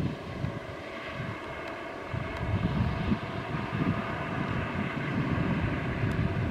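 Airbus H145 (RAF Juno HT1) helicopter flying slowly past: a steady whine of several held tones from its turbines and shrouded tail rotor, over an uneven low rumble.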